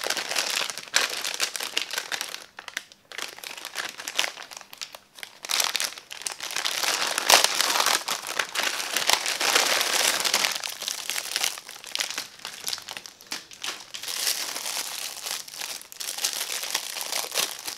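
Plastic packaging crinkling and rustling in irregular handfuls, with brief lulls, as a glossy pink plastic bag is handled and opened and a clear plastic wrapper is peeled off a squishy toy.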